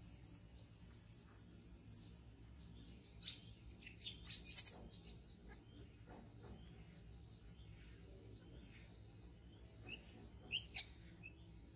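Scattered short, high-pitched chirps and squeaks from a small animal, bunched about three to five seconds in and again near the end, over a steady low background.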